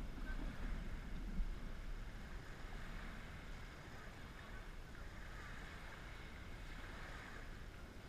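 Wind rumbling on the microphone over small waves washing onto a pebble shore, with one brief knock about a second and a half in.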